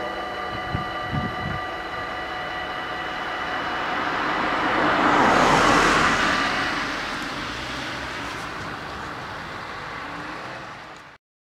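Dutch level-crossing warning bells ringing steadily while the half-barriers rise, with a few low knocks about a second in. A car passes close by and is loudest in the middle. The bells stop about two-thirds of the way through, and the sound cuts off just before the end.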